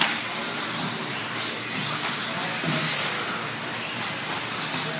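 Electric 1/10-scale RC buggies with 17.5-turn brushless motors racing on a dirt track: a steady hiss of motors and tyres, with high-pitched whines swelling and fading as cars pass.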